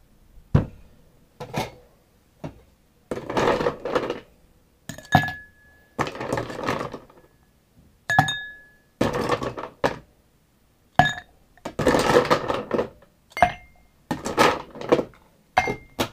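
Ice cubes being picked up with metal tongs and dropped into a glass: about a dozen separate clattering, clinking bursts, some longer and rattling, a few leaving a short glassy ring.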